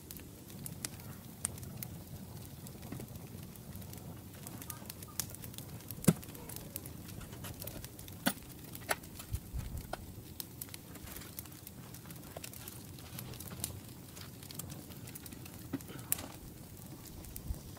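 Scattered sharp clicks and ticks at irregular intervals, the loudest about six and eight seconds in, over a faint low background.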